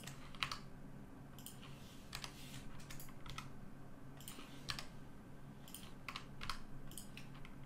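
Computer keyboard keystrokes: about a dozen short, irregular key clicks as Blender shortcuts such as Shift and S are pressed, over a faint steady hum.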